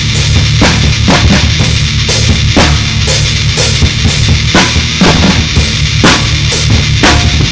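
Band music with a drum kit playing a steady beat, sharp snare-like strokes about twice a second, over a continuous loud low bass.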